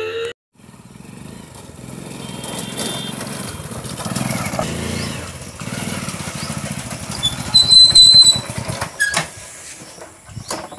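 Motorcycle engine running as the bike rides along, with even pulsing that grows louder around the middle. About seven and a half seconds in, a loud high-pitched tone sounds for about a second, the loudest sound here.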